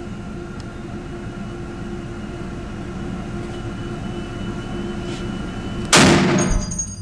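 A single shot from a Barrett M107 .50 BMG semi-automatic rifle about six seconds in: a sudden, very loud blast that dies away over about a second, over a steady low hum.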